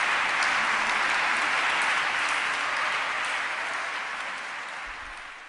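Audience applauding, steady at first and then fading away over the last few seconds.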